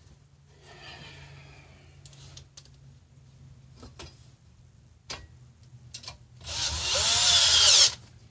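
Power drill/driver running once for about a second and a half near the end, driving a bolt into the stool's metal frame, after a few light clicks.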